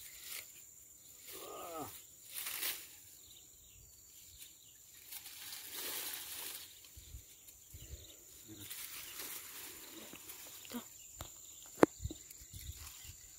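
Hooked catfish being lifted from a swamp pool on a bamboo pole and handled: scattered splashing and rustling of wet grass and leaves, with a sharp click near the end.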